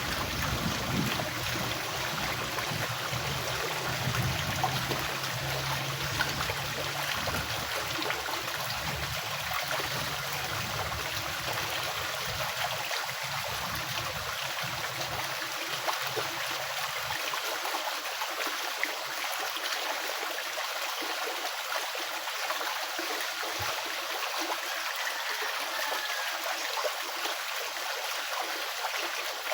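A stream or river flowing with a steady rushing and trickling, and a low rumble under it that stops about halfway through.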